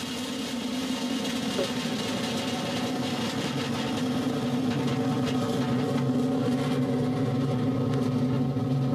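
Vega-C rocket's P120C solid-fuel first-stage motor firing during liftoff and climb-out: a steady, dense noise with a low hum in it that slowly grows louder.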